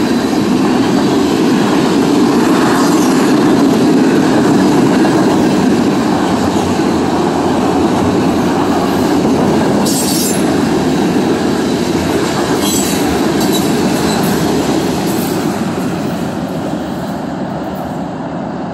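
Norfolk Southern freight train rolling past at track side: a steady, loud rumble of steel wheels on rail, with a couple of brief sharp high noises about halfway through. The sound fades over the last few seconds as the end of the train passes and moves away.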